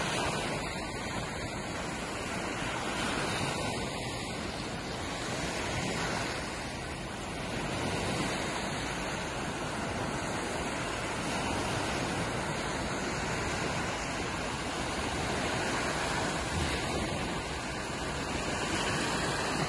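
Small waves breaking and washing up onto a sandy beach, a steady rush of surf that swells gently every few seconds.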